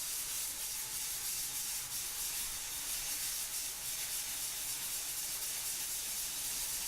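Sanding dried ready-mix plaster filler on a plasterboard wall in circular motions: a steady, even rubbing hiss.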